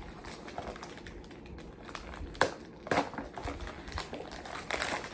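Packaging crinkling and rustling as a parcel is handled and unwrapped by hand, with two sharp clicks about two and a half and three seconds in.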